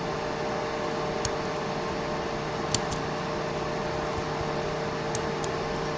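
Steady background hum with a constant low drone, and a few faint, sharp clicks of small tools and lock parts being handled while the lock is taken apart.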